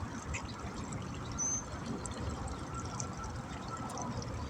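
Water lapping and trickling at the bank, a steady low rush, with a short high chirp about a second and a half in.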